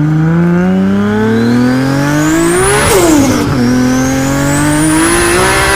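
Race car engine sound effect revving up: the pitch climbs steadily, falls back sharply about three seconds in, then climbs again. It starts and cuts off abruptly.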